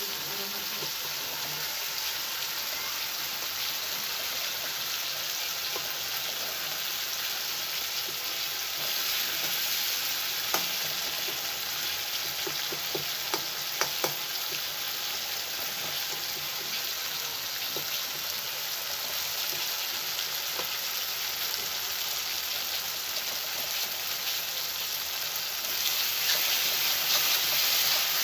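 Tomato and spice masala sizzling in hot oil in a pan, with a few light clicks near the middle. The sizzle grows a little louder near the end.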